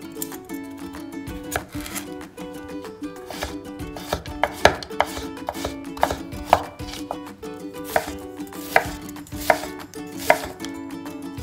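Chef's knife chopping carrot into strips and then slicing onion on a wooden cutting board: single sharp knife strikes on the board, spaced about a second apart.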